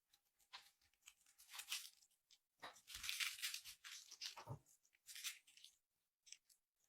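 Slime being worked by hand, crackling and tearing in several short bursts, the longest about two seconds in the middle.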